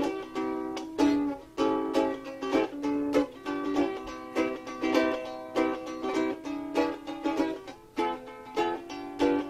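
Ukulele music: plucked notes in a quick, steady rhythm.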